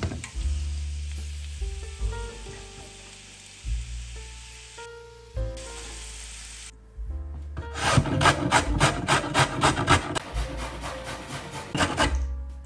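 Oil sizzling under shredded cabbage in a frying pan, over background music; then, from about eight seconds in, a carrot rasped up and down a stainless steel box grater in quick, regular strokes, about four a second, the loudest part, stopping shortly before the end.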